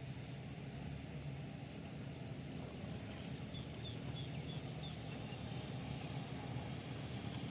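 Steady low rumbling background noise outdoors, with a short run of faint high chirps about halfway through.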